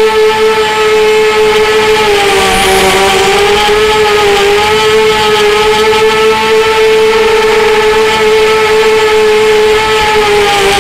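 Strider Flex 250 quadcopter's brushless motors and propellers whining loudly in flight, picked up close by its onboard camera. The pitch dips slightly about two seconds in, then wavers a little with throttle.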